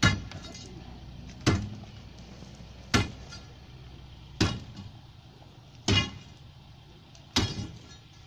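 Steel digging bar driven into the ground and rubble at the foot of a hardwood pole: six sharp blows about a second and a half apart, each with a brief metallic ring.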